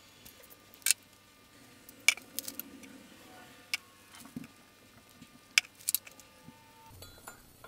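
Light, scattered metal clicks and clinks of a hand tool and loose 10 mm bolts as the camshaft retaining plate is unbolted from a Chevy 5.3L iron LS engine block.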